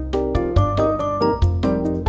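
Background music with a steady beat: keyboard chords over a bass line.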